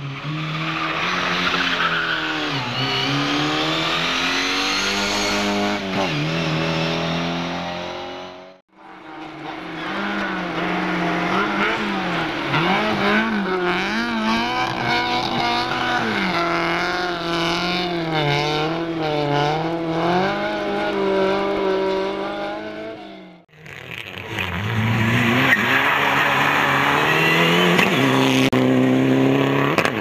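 Rally car engines at full throttle in three separate takes, the pitch climbing and dropping with gear changes and throttle lifts. In the middle take, an Opel rally car slides on snow, its revs bouncing quickly up and down with wheelspin.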